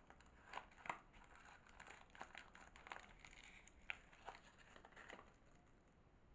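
Soap packaging being unwrapped by hand: a run of quiet crinkles and sharp little clicks that stops about five seconds in.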